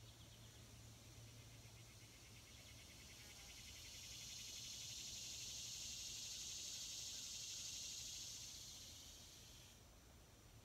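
Faint high, pulsing insect buzz that swells over a few seconds, holds, then fades and stops near the end.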